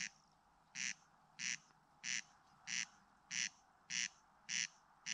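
Corncrake (Crex crex) calling: a dry, rasping 'crex crex' call repeated evenly about once every 0.6 seconds, about nine rasps in a row.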